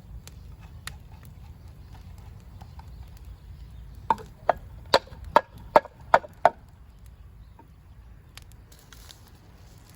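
A tool striking wood seven times in quick succession, about two and a half sharp knocks a second, like chopping kindling.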